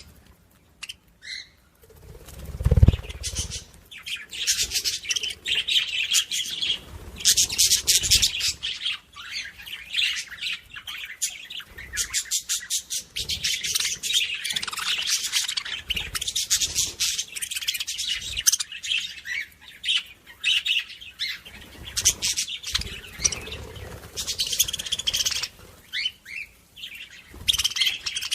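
Small birds chirping and twittering in rapid trills, almost without pause. A single dull thump about three seconds in is the loudest sound.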